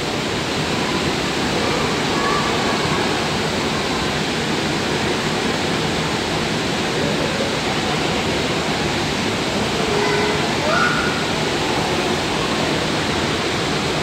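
Steady rushing ambience of a public aquarium hall, like running water, with faint distant voices now and then.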